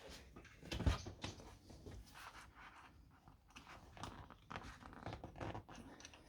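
Hands working a car seat's headrest and its plastic clips: irregular small clicks, crunches and rustles of handled plastic and trim, with a louder knock about a second in.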